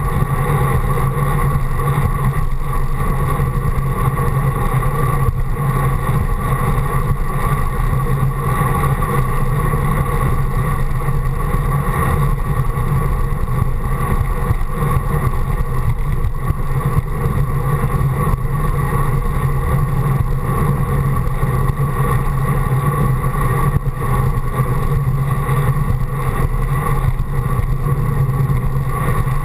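Steady rush of wind and road noise from a bicycle riding along a paved path, with a constant low hum and no let-up.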